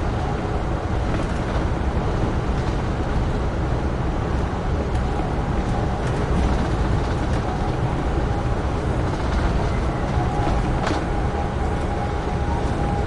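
Amtrak Northeast Regional passenger train running at speed, heard from aboard: a steady rumble of wheels on rail with a faint steady whine and a few light clicks, the sharpest about eleven seconds in.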